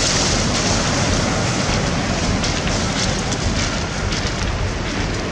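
Steady, dense rushing of sea water.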